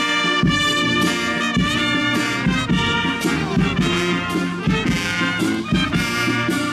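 Brass band playing a lively tune, trumpet and trombone over a steady drum beat.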